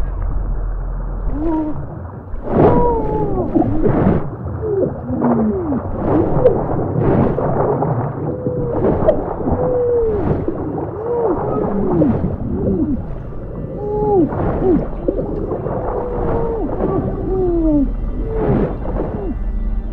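Underwater soundscape of long wailing calls like whale song, each rising and falling in pitch, following one another about once a second, with short pops scattered through.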